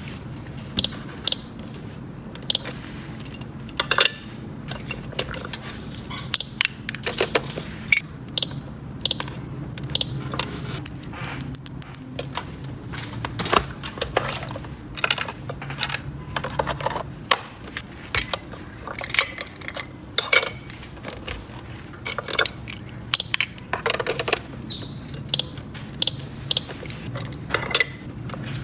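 Small plastic toy pieces handled, with many sharp clicks and taps and now and then short high electronic beeps.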